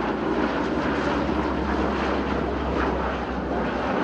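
Lockheed C-130 Hercules passing low, its four Allison T56 turboprop engines running with a steady, unbroken noise over a low hum.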